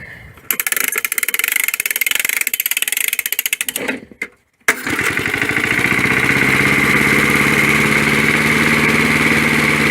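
1965 Briggs & Stratton 3 hp four-stroke single-cylinder engine (model 82906) running with fast, even firing pulses. It breaks off briefly about four seconds in, then runs steadily again to the end.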